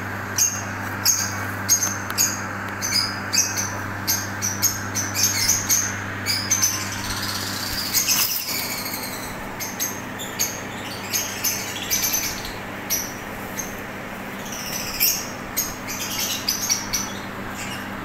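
Lovebirds chirping: a running series of short, high chirps, several a second, with a steady low hum underneath.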